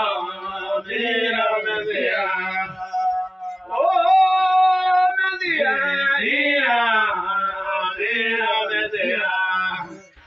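Male voices singing a gospel song over music, with one long held note about four seconds in.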